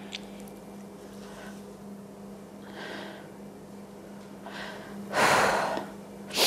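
A woman's unsteady breathing as she holds back tears: a few quiet breaths, then a loud, sharp breath about five seconds in and another short one at the end.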